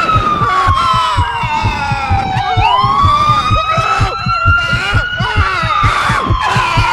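A wailing, siren-like tone that slides slowly down, swings back up about two and a half seconds in, then falls again. It sounds over a quick, even run of low thumps, about five a second.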